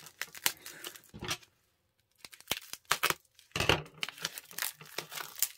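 Plastic wrapping being torn and crinkled open by hand, in irregular bursts of rips and crackles with a short pause about a second and a half in.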